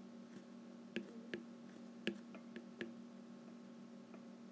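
A stylus tip tapping and clicking on a tablet's glass screen during handwriting: several sharp ticks over a faint steady hum.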